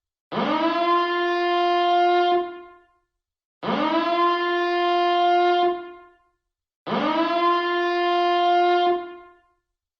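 Electronic nuclear-reactor alarm siren sounding three repeated blasts, about one every three and a quarter seconds. Each blast sweeps quickly up in pitch to a steady, buzzy horn tone, holds about two seconds, then fades away before the next.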